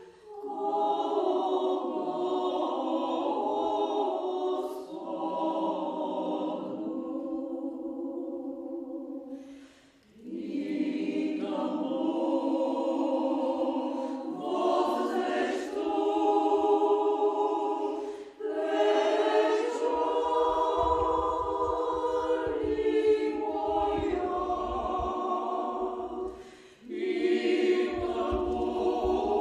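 A choir singing a slow church chant in long held phrases, with short breaks between phrases about ten, eighteen and twenty-seven seconds in.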